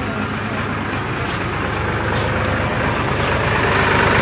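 A heavy vehicle engine running steadily, getting louder toward the end.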